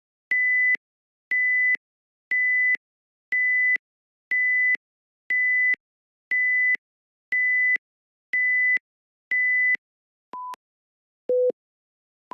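Computer-generated alarm-clock beeps: ten identical high electronic beeps, one a second. Then come a lower beep and a still lower one about a second apart, the start of an alternating tick-tock beep pattern.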